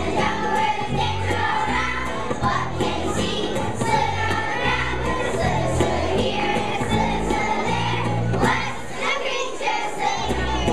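Young children singing together in unison over backing music with a steady beat.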